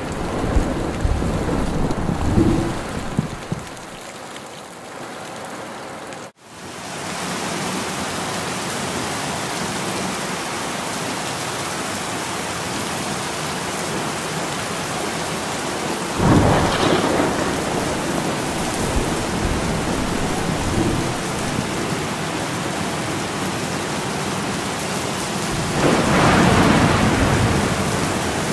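Steady rain falling on wet ground, with thunder breaking out loudly about 16 seconds in and again near the end. The sound drops out for an instant at a cut about 6 seconds in.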